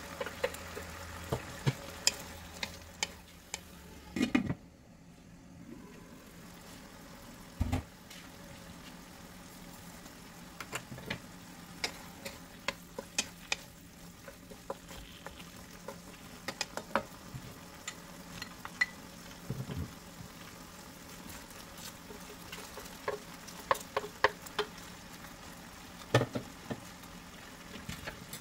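Chicken and vegetables sizzling in a hot wok as they are stir-fried, with a steady frying hiss and frequent sharp clacks and scrapes of the spatula against the pan.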